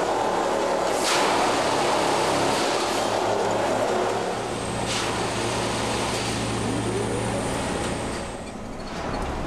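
Plasser & Theurer Dynamic Stopfexpress 09-4X track tamping machine working on the track: a dense, steady machine noise with two sharp knocks, about a second in and about five seconds in, easing off a little near the end.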